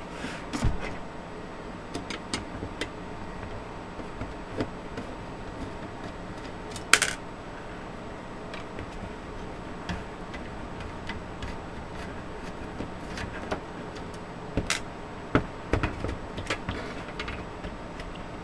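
Scattered small clicks and taps of a screwdriver backing out the screws that hold a power supply's cooling fan, and of the fan's plastic frame being handled. One sharper click comes about seven seconds in, and a few more near the end.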